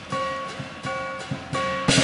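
Lion dance percussion band playing: drum strikes with short ringing pitched notes about twice a second, and a loud crash near the end that rings on.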